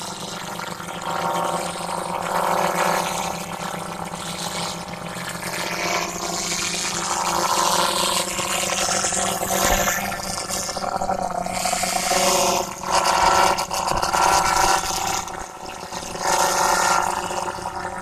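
DJI Phantom 3 Professional quadcopter's propellers and brushless motors buzzing close overhead, a steady hum of several pitches under a rush of air that swells and fades as the drone moves.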